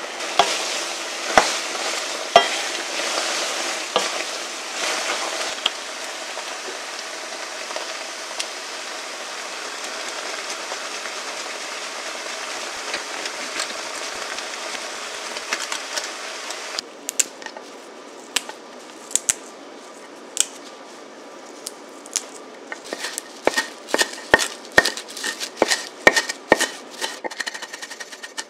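Pasta in tomato sauce sizzling in a frying pan while a wooden spoon stirs it and knocks against the pan. About two-thirds of the way through, the sizzle cuts off and a kitchen knife chops green herbs on a wooden cutting board, the taps coming quick and close together near the end.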